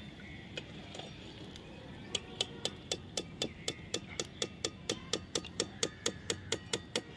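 Metal perforated skimmer tapped repeatedly against the rim of a steel kadai, shaking hot oil off freshly fried sabudana. The sharp metallic clicks start about two seconds in and come about four a second.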